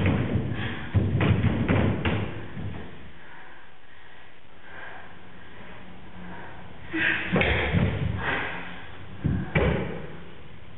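Bodies and feet thudding and scuffing on a stage floor as two performers grapple and fall. The thuds come in clusters: several over the first two seconds, then more about seven seconds in and again near nine and a half seconds, with a quieter stretch between.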